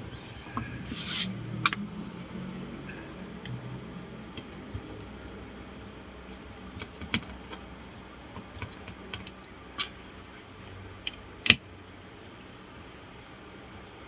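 Scattered clicks and taps of small parts and tools being handled during the disassembly of a portable speaker, with a short scraping rustle about a second in and a sharper click near the end.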